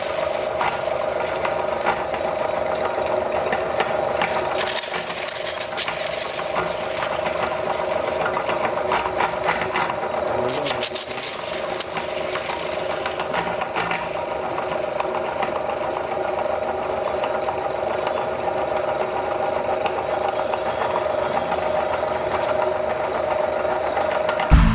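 Electric meat grinder motor running with a steady hum as eggs are ground, with short crackling bursts a few times, around five and eleven seconds in.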